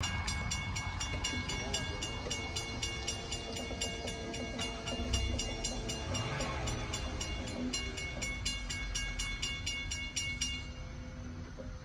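Railroad grade-crossing warning bell ringing in an even, rapid rhythm, about two to three strikes a second, over a low rumble; the bell stops near the end as the crossing gate arm comes down.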